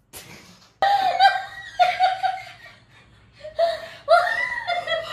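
A woman laughing in several high-pitched bursts, starting about a second in, with a short pause near the middle.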